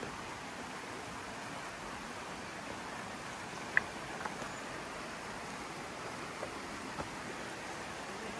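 Shallow rocky river running over stones, a steady rush of water, broken by a few short sharp clicks, the loudest a little under four seconds in.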